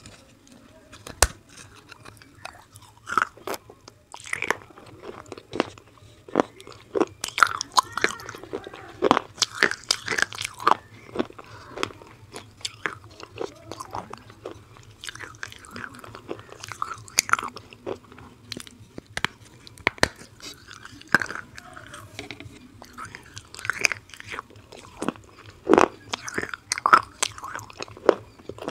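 A person biting and chewing dry, brittle clay pieces close to a clip-on microphone. Sharp, irregular crunches and snaps come in clusters, with softer chewing between them.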